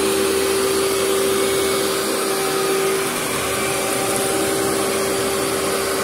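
Vacuum cleaner with a rotating carpet brush running steadily as it is pushed slowly over carpet, pulling deep soil into its canister. A steady tone rides on the whooshing motor noise and fades about halfway through.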